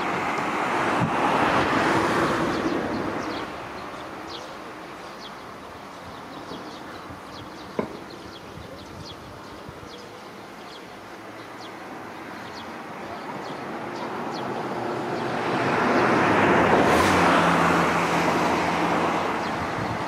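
Road traffic passing: one vehicle fading out in the first few seconds, another swelling from about fifteen seconds in and fading near the end. A single sharp click about eight seconds in, and faint short high ticks throughout.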